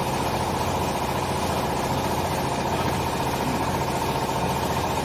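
A clothes and textile baler machine's motor running with a steady, even hum.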